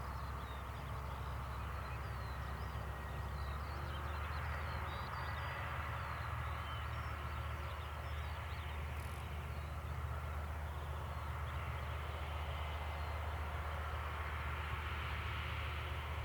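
Diesel locomotives running with a steady low drone, a broad rumbling hiss over it, and small birds chirping in the first few seconds.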